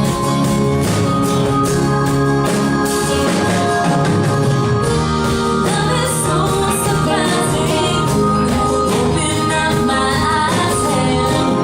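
Live rock band playing a song with a singer, drums keeping a steady beat.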